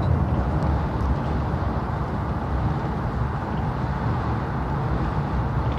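Steady low rumble of an Airport Railroad Express train running at speed, heard from inside the passenger cabin.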